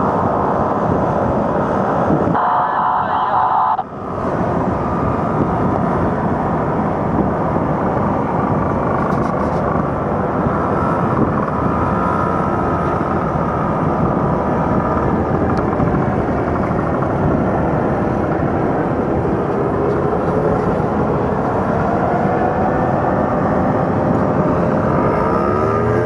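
Paramotor engine running under a steady rush of wind on the microphone, its pitch wavering up and down near the end.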